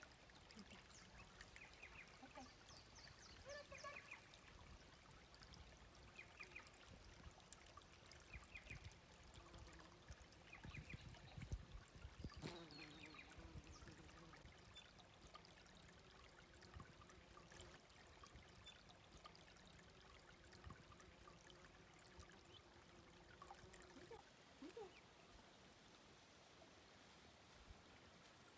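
Ducklings peeping faintly in short, high, repeated chirps over the soft trickle of a creek. A brief rumble and a sharp knock come about halfway through.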